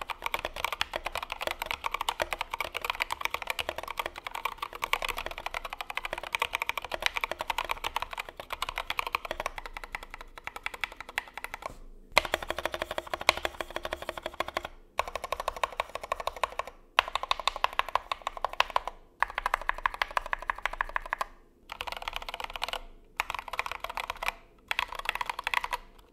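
Typing on a Drop CTRL high-profile mechanical keyboard fitted with factory-lubed Lavender linear switches and tall MT3-profile keycaps: a fast, continuous run of keystrokes, broken in the second half by short pauses every second or two. It sounds a bit hollow, which the owner puts down to the case having no foam and to the tall keycaps.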